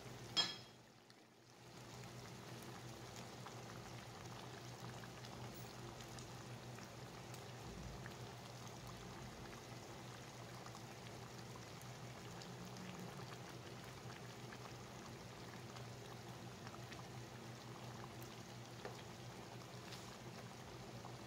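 Faint, steady simmering of a pot of kare-kare stew with pechay, with a low steady hum underneath. A short sharp sound about half a second in, then about a second of near-silence before the simmering resumes.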